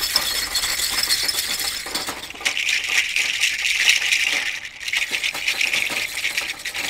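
Rain stick being tipped: a long, continuous cascade of small pellets rattling down inside the tube, growing brighter and denser about two and a half seconds in.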